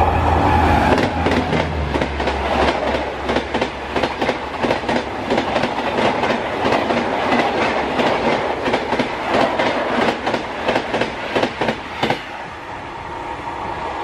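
Indian Railways WAP-7 electric locomotive passing at about 95 km/h with a steady low hum, then its Tejas Express coaches rushing by, wheels clattering rhythmically over rail joints. The clatter stops about twelve seconds in as the last coach goes by, leaving a softer rush that fades as the train recedes.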